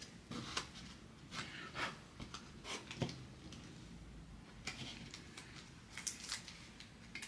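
A trading card being handled and slid into a clear plastic sleeve: faint scattered rustles and light clicks of plastic and card.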